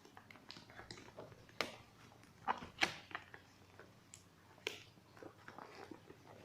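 Irregular clicks, taps and short crinkly rustles of packaging being handled during an unboxing, with a few sharper clicks standing out.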